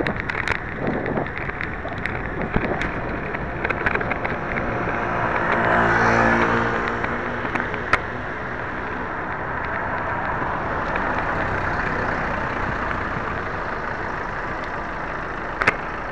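Steady road and wind noise of riding a bicycle through town traffic, with scattered rattling clicks. A motor vehicle passes close by about six seconds in, its engine swelling up and fading away.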